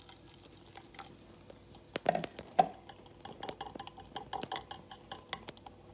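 Two clunks about two seconds in, then a run of quick, light clinks of a metal utensil against a stainless mesh strainer and glass measuring jug while blended sorrel is strained of its pulp.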